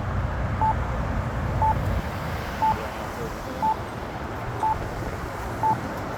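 Campbell accessible pedestrian signal (APS) push button sounding its locator tone: a short beep about once a second, which marks the button for blind pedestrians. A low background rumble runs underneath.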